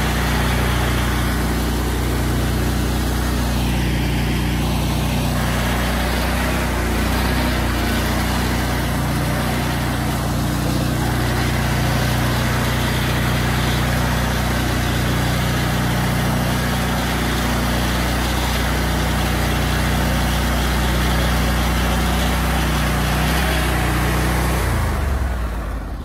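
Bandit stump grinder's engine running steadily at high throttle while the machine drives itself across the ground. It runs down and gets quieter near the end.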